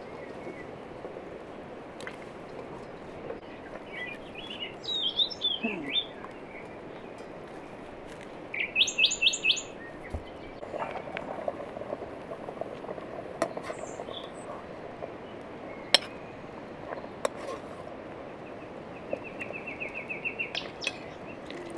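Small birds chirping in short bursts, about a quarter and again nearly halfway in, with a quick trill near the end. A few sharp clicks come now and then, the loudest about two-thirds of the way in, over a steady hiss.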